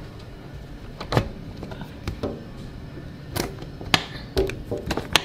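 A series of sharp clicks and knocks, about seven spread over five seconds, from a door or window being handled, over a low steady rumble.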